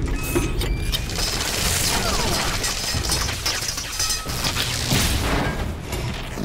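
Film sound effect of the Iron Man suit firing countermeasure flares: a rapid string of pops and fizzing crackle as the flares go off, mixed with mechanical whirs and clanks of the armoured suits.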